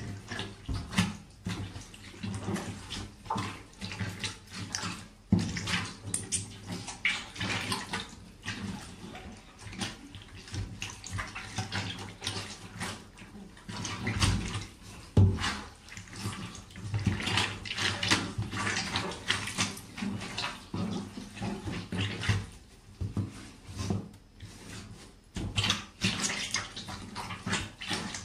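Rubber boots trampling and grinding wet food on a hard tub floor: irregular wet squelching and squishing with repeated stomps, a few of them sharply louder.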